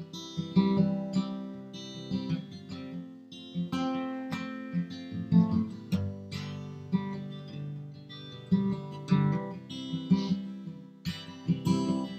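Acoustic guitar playing an instrumental break between sung verses, strummed chords with sharp plucked note attacks.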